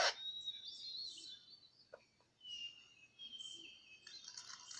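Faint high chirping and whistling, bird-like, with thin gliding tones and a short tick about two seconds in.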